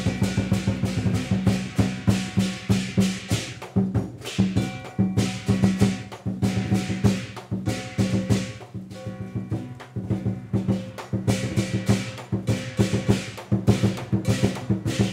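Chinese lion dance percussion: a large drum beaten in rapid, dense strokes with crashing cymbals and a ringing gong, the rhythm easing briefly a few times.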